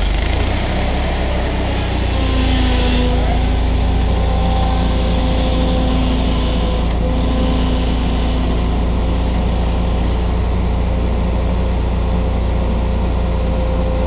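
Small engine of a towable boom lift running steadily under load, with a faint whine that shifts slightly in pitch as the boom moves.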